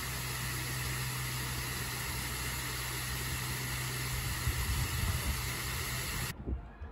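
Steady vehicle running noise: a low rumble under an even hiss, cut off abruptly near the end.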